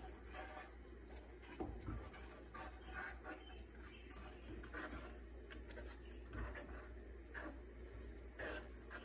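Wooden spoon stirring cooking playdough as it thickens in a metal saucepan: irregular soft scrapes and squelches.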